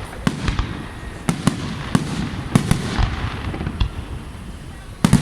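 Fireworks display: aerial shells bursting in a string of sharp bangs at irregular intervals, with crackling between them and the loudest bangs near the end.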